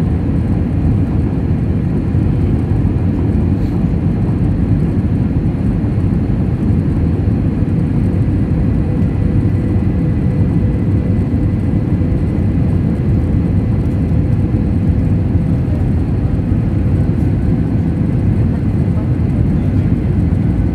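Steady in-flight cabin noise of a jet airliner: a low, even roar of engines and rushing air, with a faint steady hum on top.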